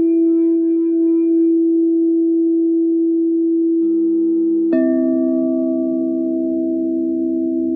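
Crystal singing bowls ringing: one bowl holds a steady pure tone, then a second bowl is struck about two-thirds of the way in, adding a lower note and a brief bright overtone.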